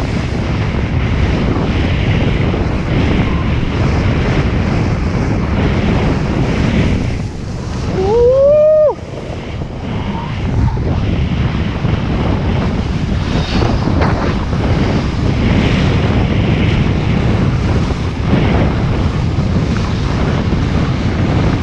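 Heavy wind buffeting the microphone while skiing downhill, a steady loud rush. About eight seconds in, one short rising yell cuts through it.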